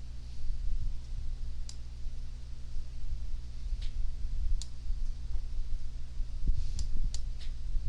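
Computer mouse clicking: a few single sharp clicks, then three in quick succession near the end, over a steady low electrical hum.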